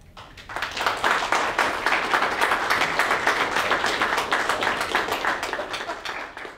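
Audience applauding, many hands clapping together, starting about half a second in and fading away near the end.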